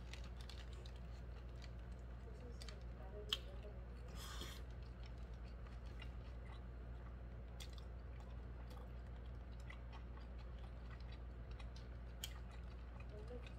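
A man biting into and chewing a mouthful of cheeseburger (Burger King Cheese Whopper Jr.): faint wet chewing with scattered sharp mouth clicks, the loudest about three seconds in, over a steady low hum. A brief hiss-like noise comes about four seconds in.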